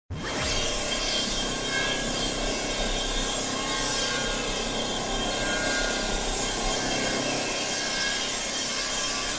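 Steady scratchy hiss of a sound effect that starts suddenly and holds even throughout, heard while a glowing spark traces a line.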